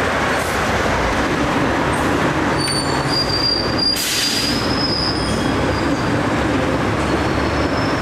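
Hong Kong double-deck electric tram running on its street track, a steady rumble with a thin high wheel squeal for a few seconds in the middle. A short hiss comes about four seconds in.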